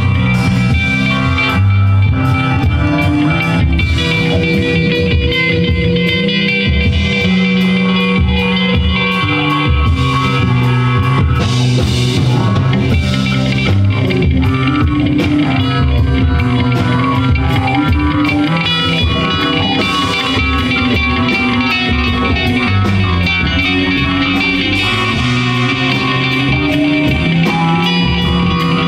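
Live band playing an instrumental passage: electric guitar over electric bass and drum kit, loud and steady throughout.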